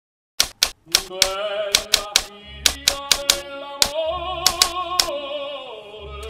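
Typewriter keys striking, about fifteen irregularly spaced clacks as a caption is typed out letter by letter, over music with a singing voice holding long, slightly wavering notes.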